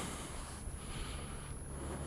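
Kawasaki KLR650 single-cylinder engine running with a low, steady rumble, with a soft breath near the helmet microphone about halfway through.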